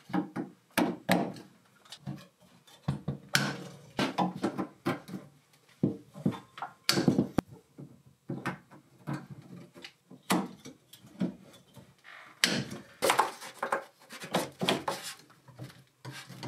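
Irregular knocks and clicks of hand plumbing work: plastic water pipe and brass fittings handled and bumped against a plywood wall, and a crimp tool clamped onto a fitting. The knocks come thickest after about twelve seconds.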